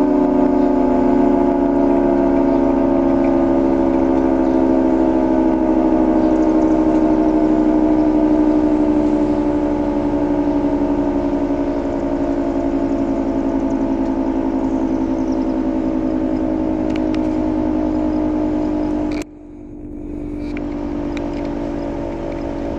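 Federal Signal 2T22 dual-tone rotating outdoor warning siren sounding its steady wail, a two-note chord that pulses gently as it rotates and sags slightly in pitch. Near the end the sound drops sharply for a moment, then comes back.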